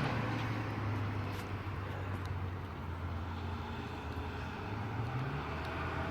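A steady low engine drone from a distant motor, rising slightly in pitch about five seconds in, over faint outdoor background noise.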